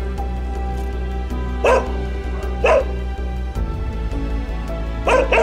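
A scared pit bull barking: two single barks about a second apart, then two quick barks near the end, over steady background music.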